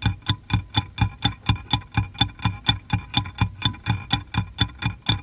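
Ticking time-bomb sound effect: an even clock-like tick-tock at about four ticks a second.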